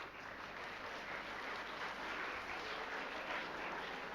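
Audience applause: many people clapping together, swelling over the first couple of seconds and then holding steady.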